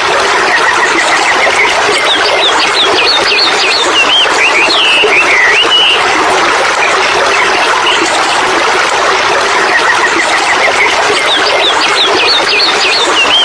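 Steady rush of a waterfall, with a songbird singing over it: a short trill followed by quick chirps and up-and-down whistled sweeps, once about a second and a half in and again the same way near the end.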